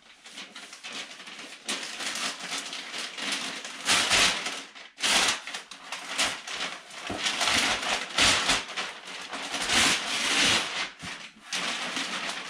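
Stiff brown kraft packing paper crinkling and rustling as a small cardboard box is opened and its paper stuffing pulled out, irregular and moderately loud throughout.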